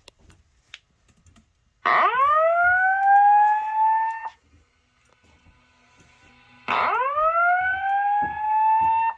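Simplex fire alarm speakers sounding the whoop evacuation tone, the alert that precedes the recorded voice evacuation message. There are two whoops, each about two and a half seconds long, rising quickly in pitch and then levelling off. The first starts about two seconds in, and the second follows a couple of seconds after the first ends.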